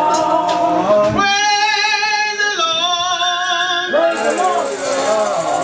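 Loud singing through a microphone, with long held notes that waver in pitch and step down partway through, as part of a gospel praise break.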